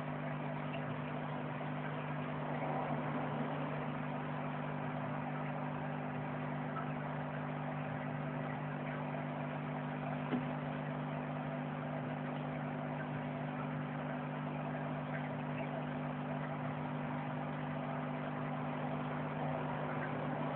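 Aquarium pump humming steadily on two low tones, with a faint even hiss over it. A single small click about ten seconds in.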